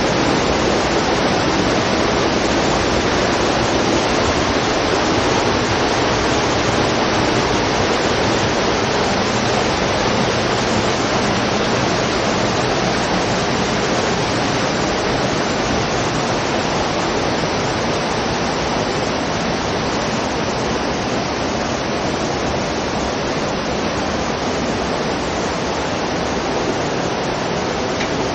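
Mountain stream rushing over rock cascades and small waterfalls: a steady, loud rush of water.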